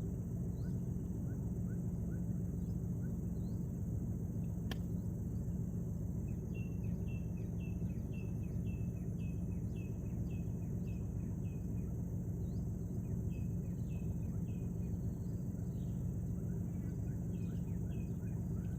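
Riverside ambience: a steady low hum under a constant high insect drone, with runs of short falling chirps, about three a second at their busiest, and a single sharp click about five seconds in.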